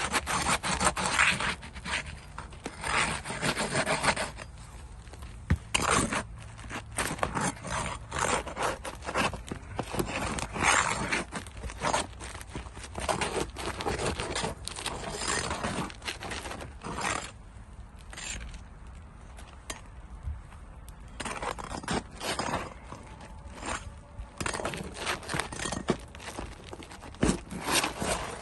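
Irregular scraping and rubbing strokes of hand tools working on a roof shingle as it is removed for replacement, easing off for a few seconds about two-thirds of the way through.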